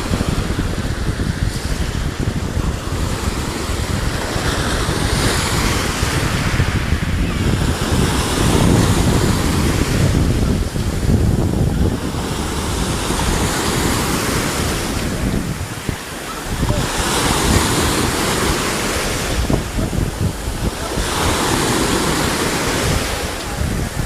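Sea waves breaking and washing ashore one after another, a fresh surge of hiss every three to four seconds over a constant low rumble of surf, with wind buffeting the microphone.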